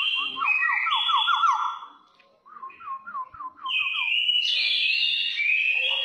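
Caged kepodang coklat (brown oriole) singing in an aggressive style. Rapid runs of short down-slurred notes come with higher whistled phrases over them. The song breaks off briefly about two seconds in, then goes on with more quick notes and loud high whistles.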